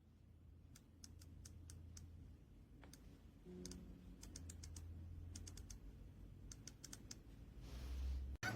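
Mechanical keyboard being typed on: faint keystroke clicks, about a dozen, irregularly spaced, over a low steady hum.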